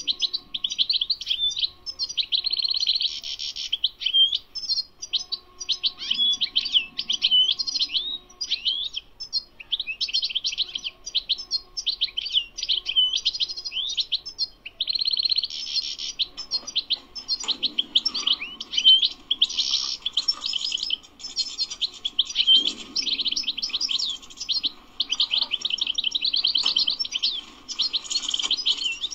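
European goldfinch singing: a long, nearly unbroken twittering song of quick high chirps and trills, with only brief pauses.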